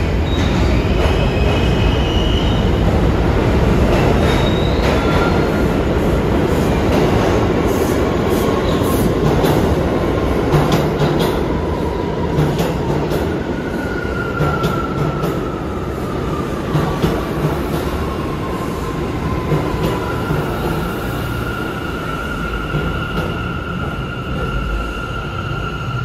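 A New York City Subway A train pulling into the station: a loud rumble of wheels on rails with sharp clicks over the track. In the second half come high wheel squeals, one of them sliding down in pitch as the train slows.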